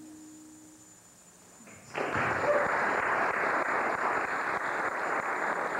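The last held notes of acoustic guitar and cello fade away. About two seconds in, an audience breaks into sustained applause.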